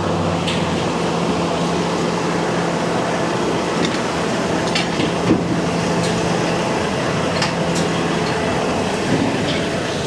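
Heavy recovery truck's diesel engine running steadily as the truck is driven slowly up onto a wash ramp, with a few sharp clicks and knocks over it.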